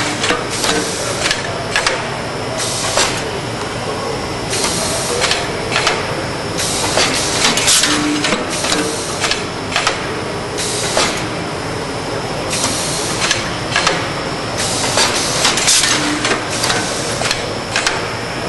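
Vertical form-fill-seal bagging machine running through its cycle: a steady mechanical clatter with a burst of hissing and clicking about every two seconds as the sealing jaws and knife work.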